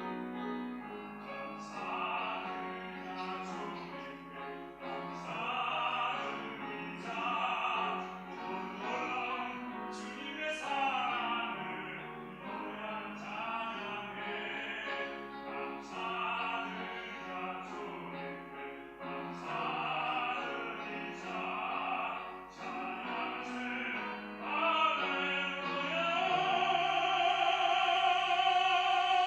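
Baritone singing a sacred solo in classical operatic style, with vibrato, over piano accompaniment. Near the end he swells into a loud, long held high note.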